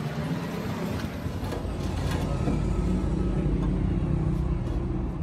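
An engine running with a steady low rumble.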